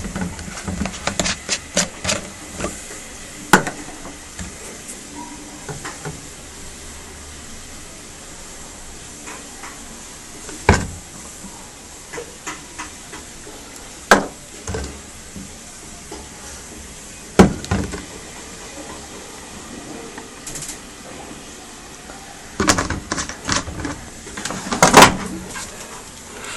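Scattered knocks and clunks from handling a washing machine's lid and fittings. They come a few at a time, with quiet stretches between, and a busier run of knocks near the end.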